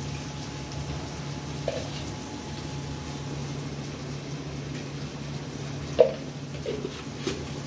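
Sliced taro root frying quietly in a pan over a gas burner: a steady low hum and hiss, broken by a few light spoon clinks as salt is spooned in. The sharpest clink comes about six seconds in.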